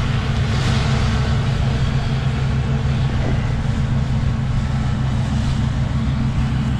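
Diesel engine of a heavy farm machine, a tractor or combine harvester, running steadily with a constant low drone.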